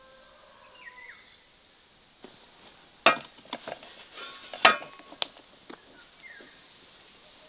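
A cluster of sharp, ringing clinks of kitchenware, metal or glass struck together, over about two seconds, two of them loudest. Faint bird chirps and a steady insect hum run behind.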